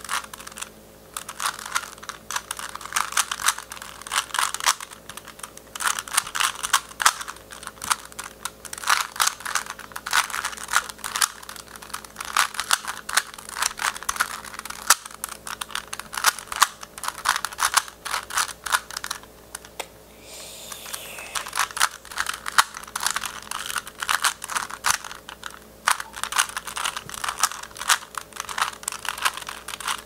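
Plastic 3x3 Rubik's cube being turned quickly by hand during a solve: rapid runs of clicking and clacking as the layers turn, broken by a few short pauses.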